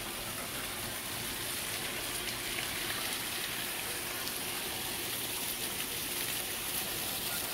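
Water gushing steadily out of a hole in an above-ground pool and splashing across the ground.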